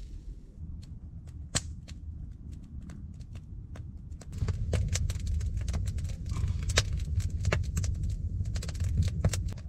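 Wood fire burning in a dug-out earth fireplace, crackling with sharp pops over a low rumble; the crackling gets louder and denser about four seconds in.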